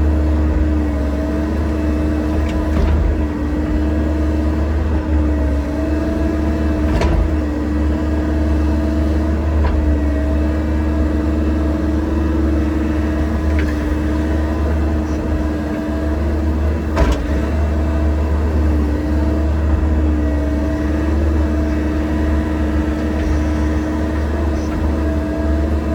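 Excavator running steadily under work: a deep engine drone with a hum that wavers slightly in pitch, and a few sharp knocks scattered through.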